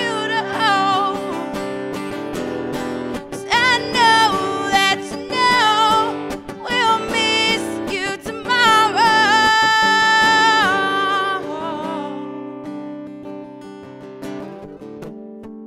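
Acoustic guitar strumming under a wordless sung melody, with one long note held about nine seconds in. After that the voice stops and the guitar chords ring on, slowly getting quieter.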